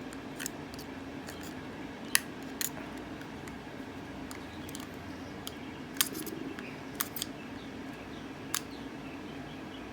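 Sharp plastic clicks and snaps, about seven at uneven intervals, as a pick tool pries at the small retaining tabs of a car's push-button start switch housing. The loudest come about two seconds and six seconds in, over a steady low hum.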